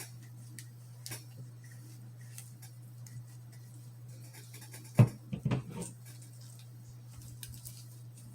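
Light clicks and clinks of revolver parts and cleaning tools being handled on a table, with a sharp knock about five seconds in followed by a few smaller knocks. A steady low hum runs underneath.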